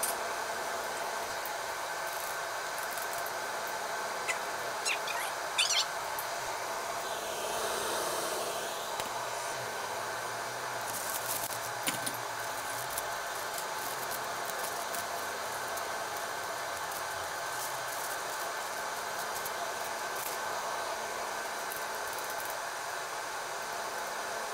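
Steady hiss of kembang goyang rosette cookies deep-frying in a pan of hot oil over a gas burner. A few brief, sharp high clinks or chirps come about five seconds in and again near twelve seconds.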